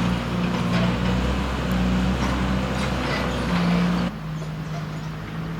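Motor vehicle engine running with road traffic noise, a steady low-pitched drone. About four seconds in it drops off suddenly, leaving a quieter steady hum.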